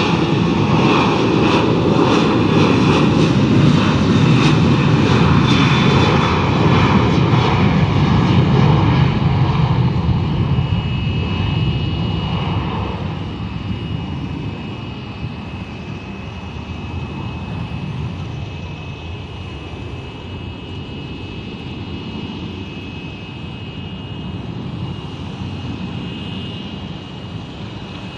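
Jet airliner's engines at takeoff thrust: a loud rumble through the takeoff roll and liftoff, which fades over the second half as the plane climbs away. A steady high whine sits under it from about ten seconds in.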